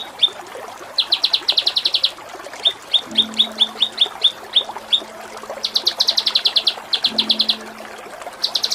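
Kinoi songbird singing: sharp, evenly spaced 'pik' notes about four a second, alternating with fast rattling trills of about a second each, repeated several times.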